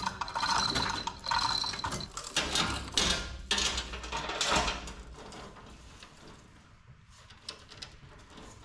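Steel lifting chains rattling, clinking and scraping against each other and the engine as they are wrapped around it for hoisting. The handling is busy for about the first five seconds, then drops to a few quieter clinks.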